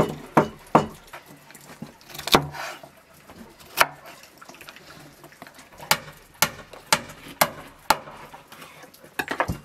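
A series of sharp wooden knocks. They come irregularly at first, then in an even run of about two a second, with a quick cluster near the end.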